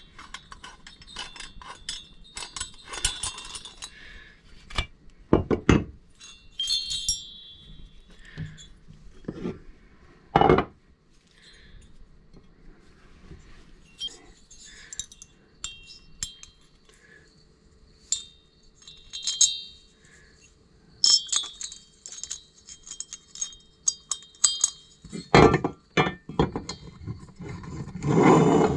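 Small metallic clinks and taps of hand work on a two-stroke chainsaw cylinder and crankcase: a T-handle hex wrench working the cylinder bolts, with the cylinder and bolts being handled. Several louder knocks are scattered through, and there is a heavier stretch near the end as the cylinder is fitted onto the other case half.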